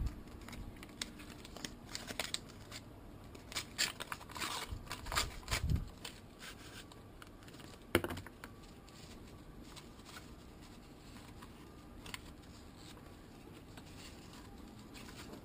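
Paper wrapping being torn open and crumpled by hand: a run of crinkling rustles and small crackles for the first six seconds, with one sharper snap about eight seconds in, then only faint room noise.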